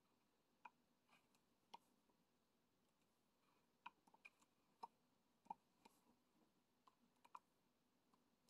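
Faint, irregular small clicks and taps, about a dozen in all, of diamond-painting drills being picked up and pressed onto the canvas.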